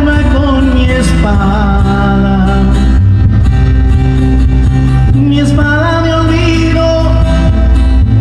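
Loud music with a sung melody and heavy bass, played through a dance sound system.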